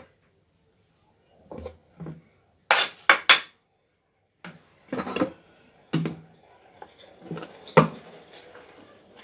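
Kitchenware being handled: bowls, plates and utensils clinking and knocking against each other in a string of separate strikes, the loudest a quick run of three clinks about three seconds in, with faint scraping near the end.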